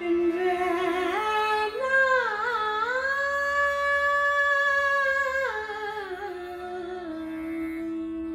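A woman singing Indian classical vocal over a plucked tanpura drone. Her voice climbs in steps, holds one long note, then slides back down near the end.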